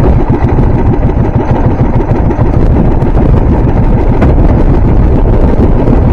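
Small fishing boat's engine running steadily, loud and close.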